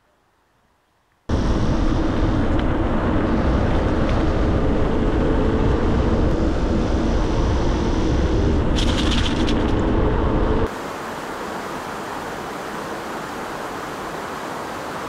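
Wind buffeting the microphone of a bike-mounted camera while riding, a loud, deep, even rush that starts abruptly about a second in, with a brief hiss near nine seconds. Shortly before eleven seconds it drops to a quieter steady rush.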